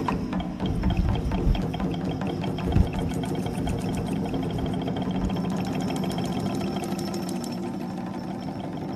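Background music: a steady droning bed with a fast ticking pulse, broken by two low thuds in the first three seconds.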